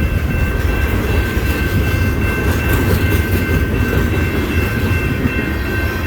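Freight cars of a CN train rolling past close by: a steady rumble of steel wheels on the rails, with a thin, steady high-pitched tone from the wheels held over it.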